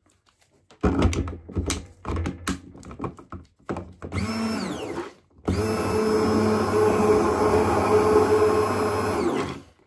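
Handheld stick blender. First come a few knocks and clicks, then a short burst about four seconds in that winds down. After that the motor runs steadily for about four seconds, blending runny lotion in a glass jar, and it stops just before the end.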